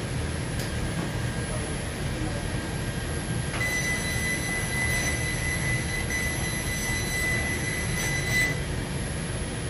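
Galvo laser fabric-cutting machine at work: a steady rushing of its extraction air, with a high, steady whine that joins about three and a half seconds in and stops about a second before the end while the laser cuts shapes in the fabric.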